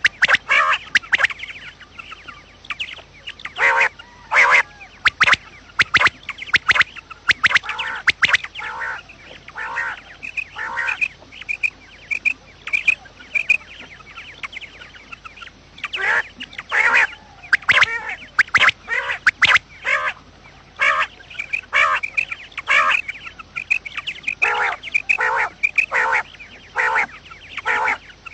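Quail calling over and over in short, sharp notes that come in bunches, with a quieter run of thin notes near the middle.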